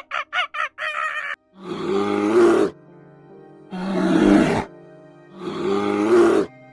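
An animal's rapid string of short repeated calls, breaking off about a second and a half in, then three loud, rough calls of about a second each, evenly spaced, over steady background music.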